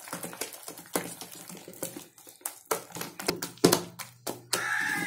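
A hand beating thick, wet urad dal batter in a steel bowl: irregular wet slaps and clicks as the batter is whipped to make it fluffy and airy.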